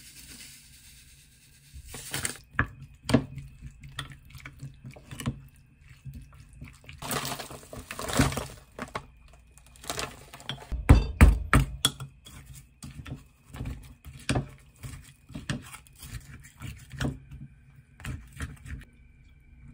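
Wooden spoon stirring a thick corn, mayonnaise and cheese mixture in a glass mug, knocking and scraping against the glass again and again. A rustling stretch comes about seven seconds in, and a quick run of knocks a little past halfway is the loudest.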